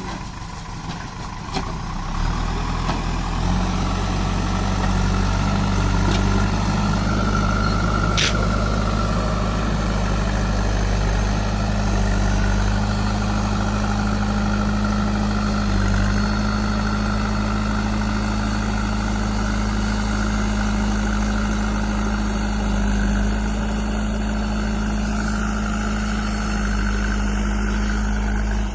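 JCB 3DX backhoe loader's diesel engine picking up revs about two seconds in, then running steadily, with a single sharp click about eight seconds in.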